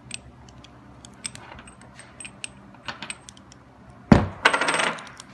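Light metallic clicks as the spring clip and cover are worked off a stainless steel three-way valve, then a sharp metal clank about four seconds in followed by a brief rattle of metal parts.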